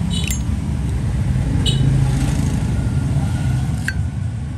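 Steady low rumble of motorbike and car traffic, with three short, sharp metallic clicks, the last one ringing briefly.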